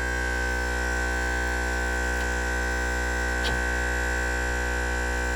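Viair air compressor running steadily, charging its 2-gallon air tank for an air horn: an even electric-motor hum with a high whine over it. Pretty quiet.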